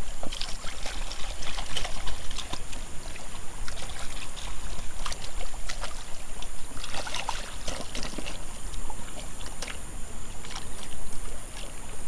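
Water splashing and sloshing irregularly as a hand scrubs muddy plastic toys under shallow river water.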